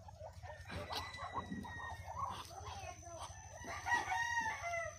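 Chickens clucking, with a rooster crowing about four seconds in, the loudest call.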